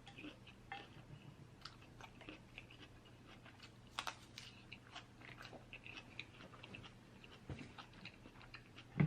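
A person chewing food close to the microphone: soft, irregular wet clicks and mouth sounds, with one sharper click about four seconds in.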